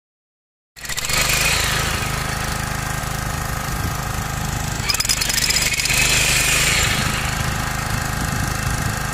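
Corded HiKOKI electric demolition hammer pounding into the soil of a grave pit, a steady rapid hammering that starts abruptly about a second in.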